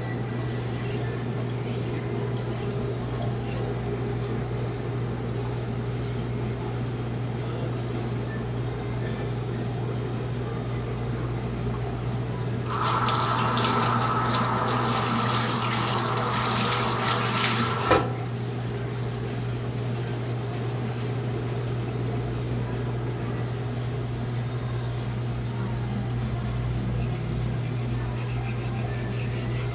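Water running from a tap for about five seconds in the middle, the usual way of wetting a splash-and-go whetstone, ending in a sharp knock; a steady low hum runs underneath throughout.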